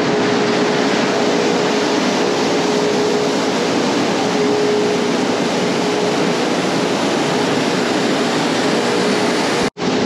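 Grain elevator conveyor running as field beans are unloaded onto the heap: a loud, steady rushing noise with an even hum under it. It cuts out briefly near the end.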